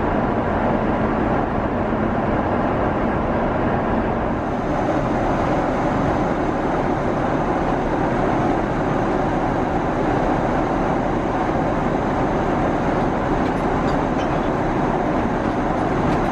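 Steady cabin noise of a Boeing 777-300ER in flight: an even rush of air and engine drone, with a little more hiss from about four seconds in.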